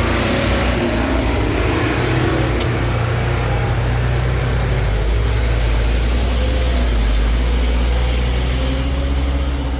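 Heavy diesel engine running steadily under load, its low note shifting about halfway through.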